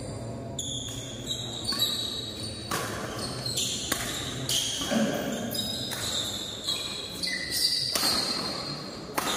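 Court-shoe squeaks on a badminton court floor mixed with sharp knocks, several short squeaks that start and stop abruptly, echoing in a large hall.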